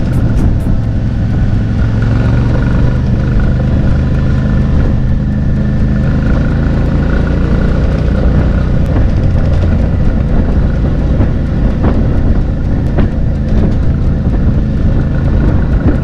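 Adventure motorcycle engine running steadily under way on a gravel road, with wind and road noise.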